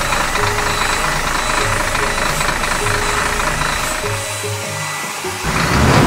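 Cartoon garbage truck engine sound effect running over background music with a repeating melody, and a falling swoosh near the end.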